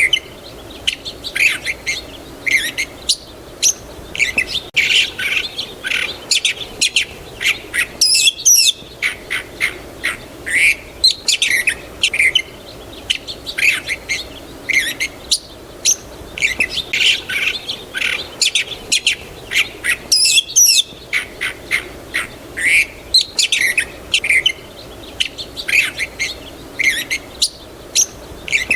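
Birds chirping and singing in a busy chorus of short, rapid calls and quick whistled glides, over a steady low background noise.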